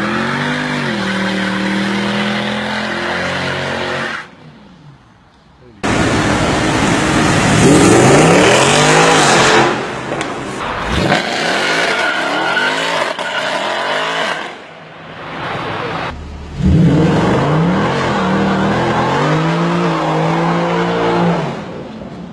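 Mercedes-AMG C63 engine and exhaust revving and accelerating hard, the pitch climbing and falling again in several runs. There is a short quieter gap about four seconds in, and the sound jumps abruptly between passes.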